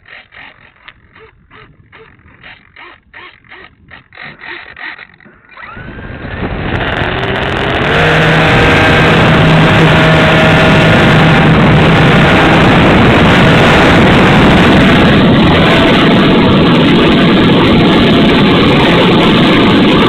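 The twin electric motors and propellers of an FMS 1470mm B-25 RC plane spool up to full throttle about six seconds in for the takeoff run. They then hold a loud, steady drone mixed with wind rush on the tail-mounted camera as the plane climbs out. A few faint clicks come before the spool-up.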